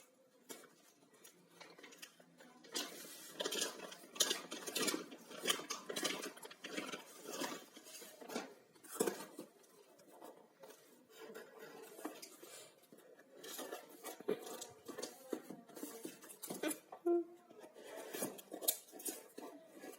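Packaging being handled during an unboxing: irregular rustling, with clicks and taps of cardboard and plastic.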